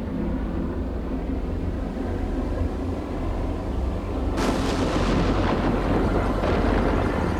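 A steady low rumble; about four seconds in, a loud thunder-like crashing noise breaks in suddenly and continues.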